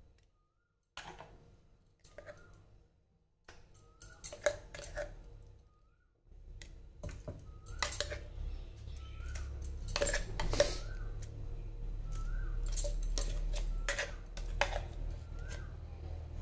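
Spoon clicking, tapping and scraping against a mixer-grinder jar as coarse onion-garlic paste is scooped out, with a few short silent gaps in the first six seconds. A low steady hum starts about six seconds in.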